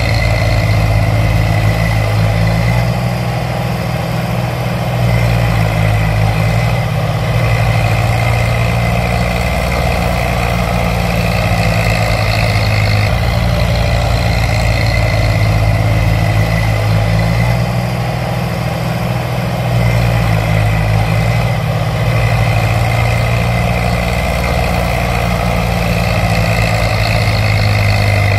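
A tractor engine sound effect running steadily at a low, diesel-like note. It dips and swells slightly in a pattern that repeats about every 14 seconds, like a loop.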